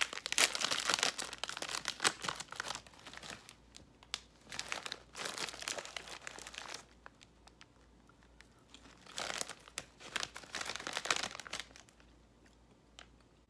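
Plastic snack bag of white cheddar popcorn crinkling as it is torn open and handled, in three bouts of crackling with quieter pauses between.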